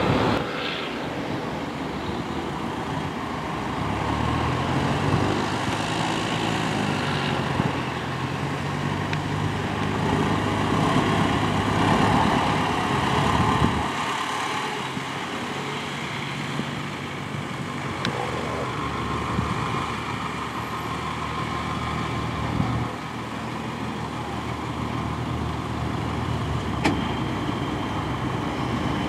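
Cessna 172M's four-cylinder engine and propeller running at low taxi power, a steady drone that grows louder about four seconds in and drops back after about fourteen seconds.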